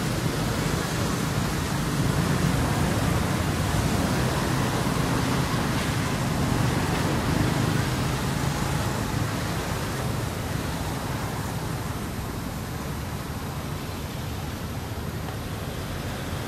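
Steady rushing outdoor background noise, slowly fading over the second half, with no distinct events.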